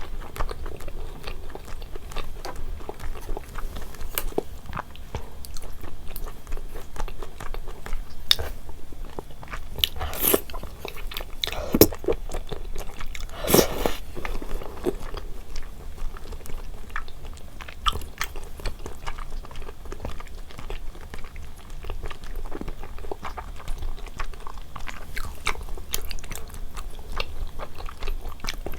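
Close-miked eating: chewing and biting on rosé braised chicken and thick glass noodles, a steady run of small wet mouth clicks, with two louder eating noises near the middle.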